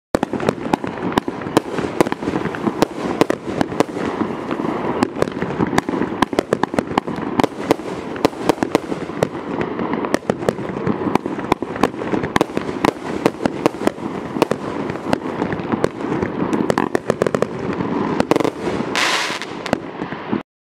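A 20-shot, 350-gram consumer fireworks cake (Boomwow Curb Alert) firing: a continuous stream of sharp reports and rapid, dense popping, with a short hiss near the end, then a sudden cut-off.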